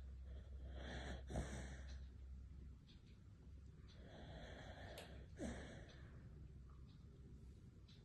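Sleeping beagle snoring: two slow, noisy breaths, one about a second in and one about four seconds in, each with a brief falling note.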